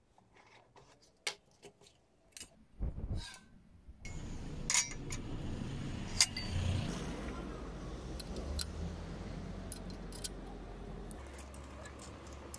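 Light taps and handling noises from a cardboard box. About four seconds in, a steady low outdoor rumble sets in, with scattered sharp metallic clinks as an Allen key and bolts knock against a steel crate-carrier plate being fitted to a bicycle's rear rack.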